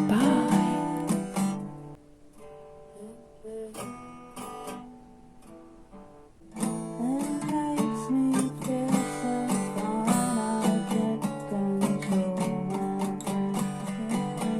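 Acoustic guitar being played, strummed and picked. The playing thins to a few soft single notes for several seconds, then picks up again fuller about six and a half seconds in.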